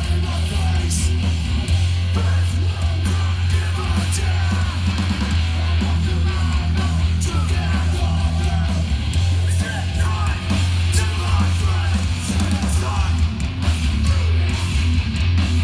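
Hardcore punk band playing live: heavy distorted guitars and bass over drums with crashing cymbals, loud and steady throughout, with wavering vocal-like lines over the top.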